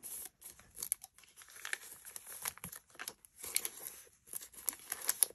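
Hands rubbing and pressing paper scraps flat onto a book page: irregular short rustles and scrapes of paper, the pieces freshly glued and being smoothed down because they are not lying flat.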